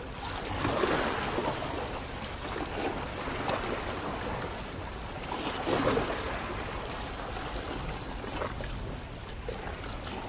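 Sea waves washing against the rocks of a breakwater, surging louder about a second in and again around six seconds.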